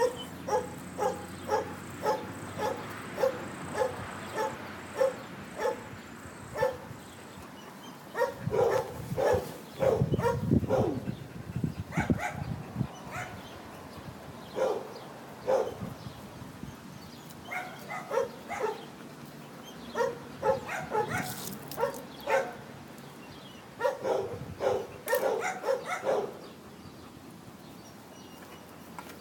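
A dog barking repeatedly: a steady run of about two barks a second, then barking in irregular bunches. A low rumble comes about ten seconds in.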